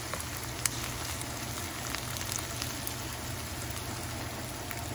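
Chopped garlic and onions sizzling as they fry in oil in a pan, with a few light clicks from the stirring utensil.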